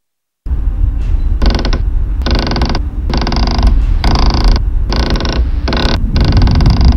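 A string of creaking rasps, each about half a second long with short gaps between them, over a steady low rumble that starts abruptly about half a second in.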